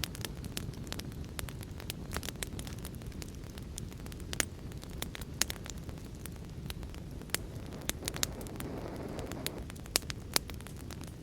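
Wood fire in a fireplace crackling, with irregular sharp pops, a few much louder, over a steady low rush of heavy rain.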